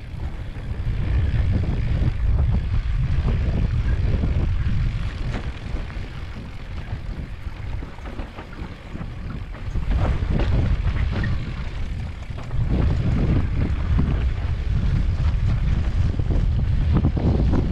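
Wind buffeting the microphone of a camera riding on a mountain bike downhill, a heavy low rumble that swells and eases in surges, with scattered knocks and rattles from the bike running over the rough dirt singletrack.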